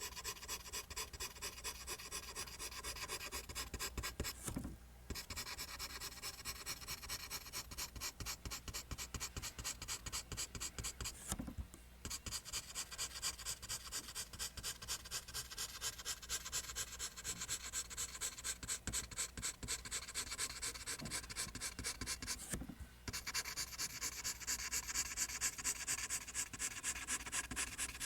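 Pencil scratching on paper in quick back-and-forth line strokes, about three a second, with brief breaks three times as the pencil lifts.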